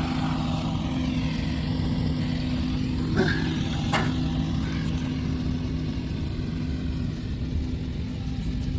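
An engine running steadily at a constant speed, a low rumble with a steady hum, and two short knocks about three and four seconds in.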